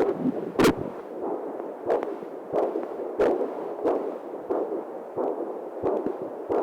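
Fetal heartbeat picked up by a Doppler ultrasound, heard as a steady run of whooshing pulses, about three every two seconds.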